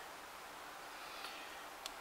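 Butane gas soldering iron running on its low setting, giving a faint steady hiss, with a small click near the end.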